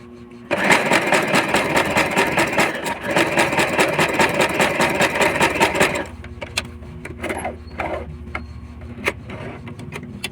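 Portable sewing machine running at speed for about five seconds, a fast, even run of needle strokes, then stopping abruptly. It is sewing a long gathering stitch for ruffles. A few light clicks follow.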